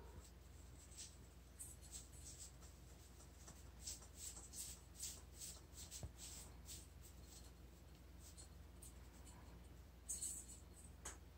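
Faint scratchy rustling of Christmas tree branches and ornaments as a cat paws and climbs into the tree: many short, irregular scrapes through the first half and again near the end.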